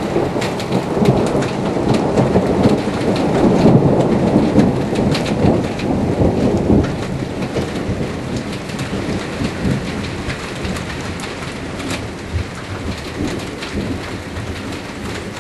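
Heavy rain with rumbling thunder, loudest in the first half and easing a little later on.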